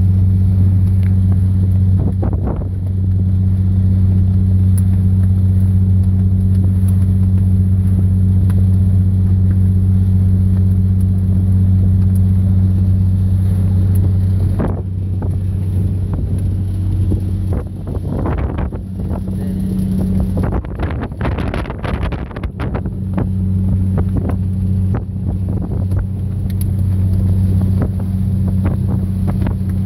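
Fishing boat's engine running steadily under way, a constant low drone. For several seconds midway the drone dips and a rushing, splashy noise rises over it.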